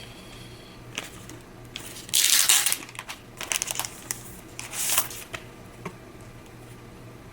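Packaging rustling and sliding in three short bursts as a newly bought trackpad is unboxed; the loudest burst comes about two seconds in.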